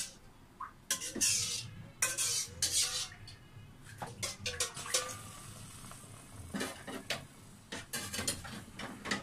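Wooden spatula stirring thick chili-garlic paste in a nonstick pan, giving irregular scrapes and knocks against the pan.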